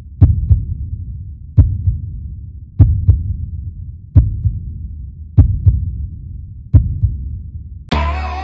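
Deep, slow heartbeat-style thumps, about one every 1.3 seconds, several followed by a softer second beat, over a low rumble. Near the end a sustained synth chord comes in.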